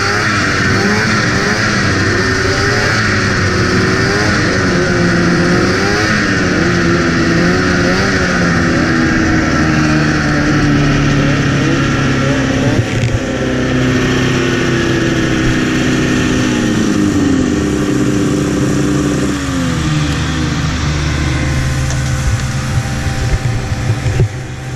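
Polaris TX 340 two-stroke snowmobile engine heard from on board. The revs waver up and down at first, then fall away in several drops and settle to a steady idle as the sled slows to a stop.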